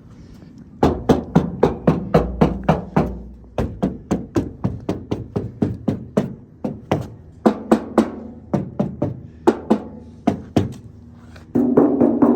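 Rapid tapping on the sheet-metal door of a 1964 VW Beetle, in three runs of sharp knocks at about four or five a second, testing whether the peel-and-stick aluminium sound-deadening tape inside the door damps its tinny ring. Near the end a louder, steady humming sound takes over.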